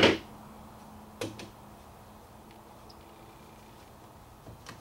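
Clamps being picked up and handled: a sharp knock, a second knock about a second later, then a few light clicks. A faint steady hum sits underneath over the first half.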